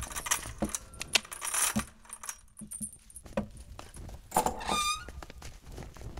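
Iron chain rattling and clinking against a barred cell gate as it is handled, in several bursts of jangling, with a short ringing metallic note about four and a half seconds in.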